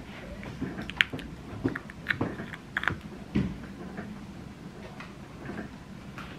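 Chocolate Easter egg halves being popped out of a silicone mould and handled: scattered light clicks and taps, mostly in the first few seconds, then quieter.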